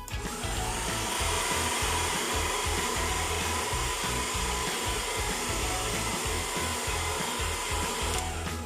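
AOKAI ionic hair dryer running steadily: a continuous rush of air with a faint high whine, cutting off sharply near the end.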